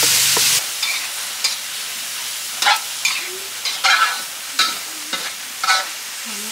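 Chopped intestines stir-frying dry in a hot pan, sizzling, with a spatula scraping and tossing them about once a second. The sizzle is loudest in the first half second, then settles to a steady hiss.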